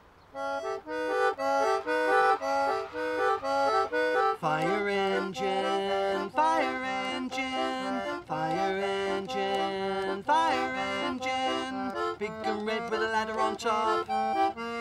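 Concertina playing a lively tune in short, rhythmic chords, the instrumental lead-in to a song. A swooping note rises and falls about every two seconds over it.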